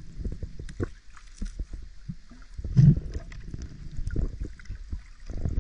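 Water sloshing and gurgling around a camera held just below the sea surface, heard as irregular low knocks and rumbles, with a louder burst nearly three seconds in.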